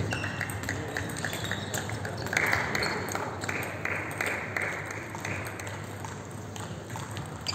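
Table tennis ball being hit back and forth in a rally, clicking off the bats and the table about three times a second. The rally stops a little past halfway through.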